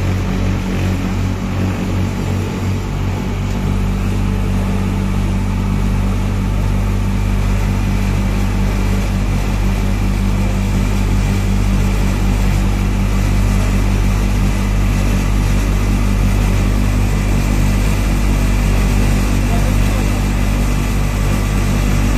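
Houseboat engine running steadily, a constant low hum under a noisy wash.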